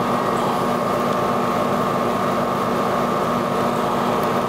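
Steady machine hum, with a constant high whine over a lower drone and an even hiss.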